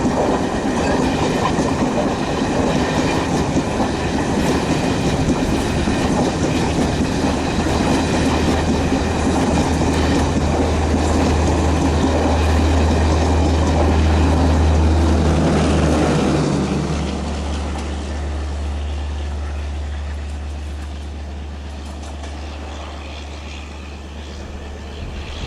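An ALCO WDM3A diesel locomotive's 16-cylinder ALCO 251 engine running with a deep drone while the wheels clatter over rail joints. The drone grows to its loudest about fifteen seconds in, steps down a second later, and the sound then fades.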